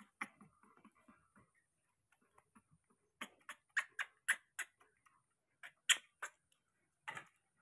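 Baby monkeys suckling milk from small plastic bottles: a run of short, sharp sucking clicks and smacks, about three a second for a couple of seconds from about three seconds in, then a few more near the end.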